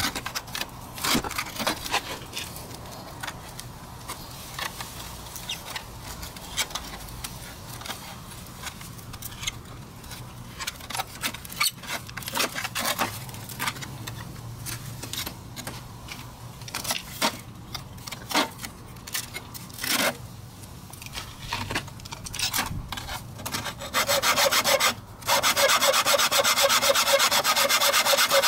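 Metal scraping and clicking as a thin rod is worked into the cut seam of a metal scooter muffler to pry the shell apart, in irregular strokes. Near the end a hacksaw starts cutting the muffler body, a much louder, fast, even back-and-forth sawing that stops briefly once.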